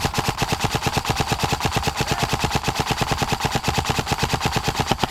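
Airsoft rifle firing one long full-auto burst, a rapid even rattle of about a dozen shots a second over a steady whine, cutting off suddenly at the end.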